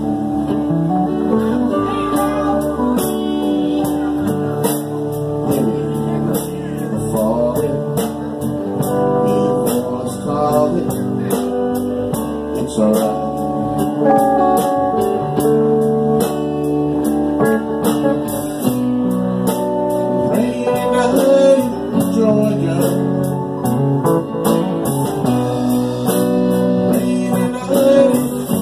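A live band playing a slow soul-blues ballad: electric guitars and a man singing, over a steady beat.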